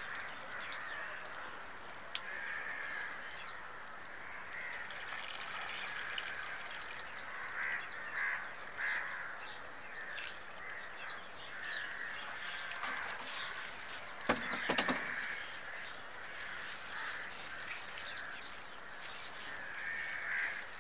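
Crows cawing again and again, over a steady hiss of water pouring from a plastic bottle into a pot of sand and water. A single knock about fourteen seconds in.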